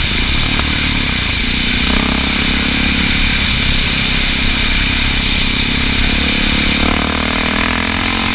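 Honda XR650L's air-cooled single-cylinder four-stroke engine running while the bike is ridden off road, with the revs climbing near the end.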